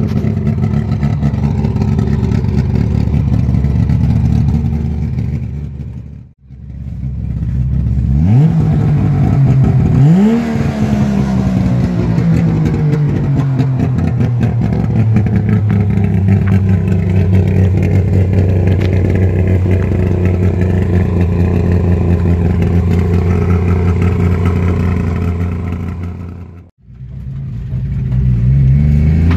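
Saab 95's three-cylinder two-stroke engine running with a stock-less exhaust that still lacks its second muffler: two quick revs a third of the way in, settling back to a steady idle, then revs rising near the end as the car pulls away.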